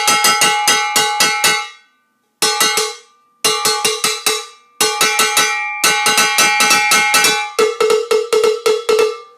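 Hand-held cowbell (campana) struck with a stick in five quick runs of rapid strokes, split by short breaks, each stroke ringing metallic. It is played with a finger placed on the bell, the grip used for solo or special figures.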